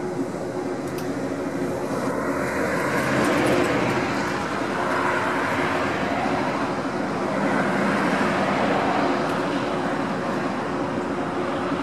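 Road traffic: cars passing close by, their tyre and engine noise swelling around three to four seconds in and again around eight seconds in, with a steady low hum underneath.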